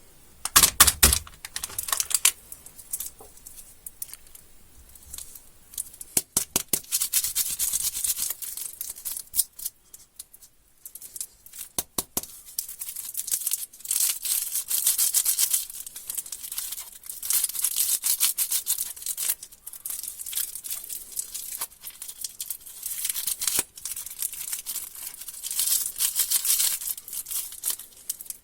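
Plastic candy wrappers being torn open and crinkled by hand: bursts of crackling with short pauses in between, the loudest about a second in.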